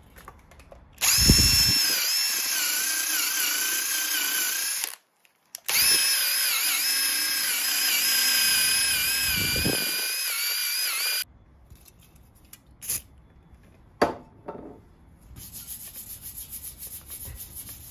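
Handheld electric power tool running in two runs of about four and five seconds, its whine dipping slightly in pitch as it is pressed against the two-stroke expansion chamber to clean off the torch mark. A few faint knocks follow.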